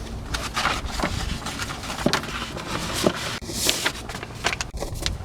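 Rustling, crinkling and light clicks of paper and packaging being handled, with a brief swish about three and a half seconds in.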